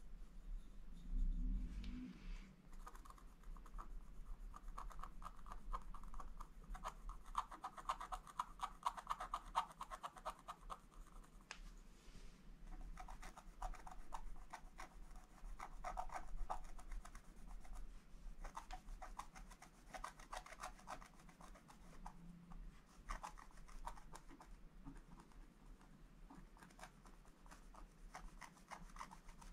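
Wooden scratch stick scraping the black coating off a scratch-art page in quick, short strokes, a faint fine scratching that comes in runs. A soft low bump about a second in.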